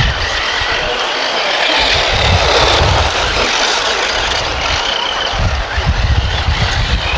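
Electric radio-controlled off-road buggies racing on a dirt track: a steady hiss of motors and tyres on gravel with faint high whines, and irregular low wind rumble on the microphone.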